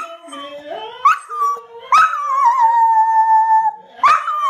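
A dog howling, or "singing": a few short rising calls, then one long held howl of nearly two seconds. Another howl starts near the end.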